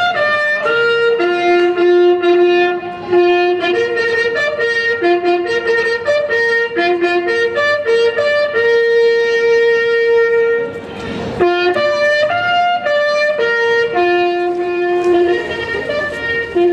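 Instrumental music: a reedy wind instrument plays a slow melody of held notes, with a brief break about eleven seconds in.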